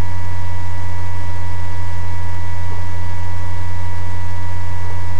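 Loud, steady electrical hum with hiss on the recording: a strong low hum with fainter high, steady tones above it.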